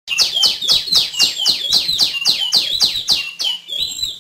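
Female tiểu my bird calling: a fast run of about fourteen sharp downward-sliding notes at roughly four a second, ending near the close on a shorter, different note.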